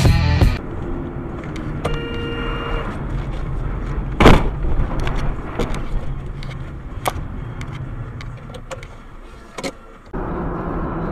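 Car road noise picked up by a dashcam, with a short steady tone about two seconds in and one loud sharp bang about four seconds in, followed by a few lighter knocks.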